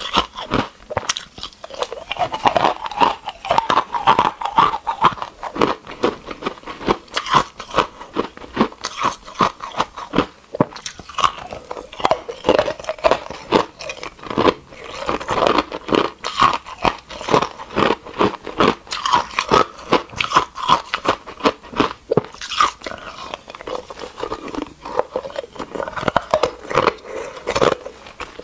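Close-miked biting and chewing of coloured ice cubes: a rapid, continuous run of sharp crunches and cracks as the ice is bitten off and ground between the teeth.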